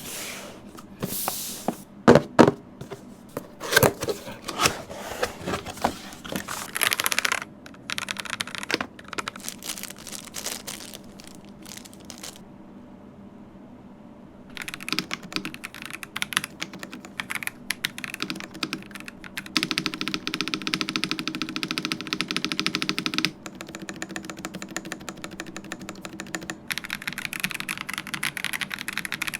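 Irregular clicks, knocks and rustling as the keyboard and its packaging are handled, then, after a short lull, rapid typing on the Ajazz AK992 mechanical keyboard, a fast run of key clacks that is densest about two-thirds of the way through.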